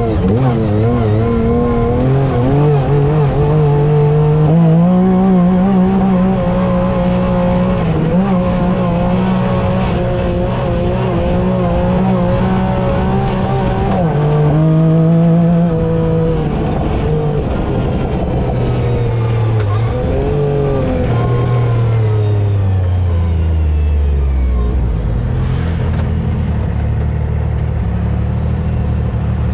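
Yamaha YXZ side-by-side's three-cylinder engine running on the trail, revs rising and falling with the throttle. Its pitch sinks over the last few seconds and settles to a steady low idle.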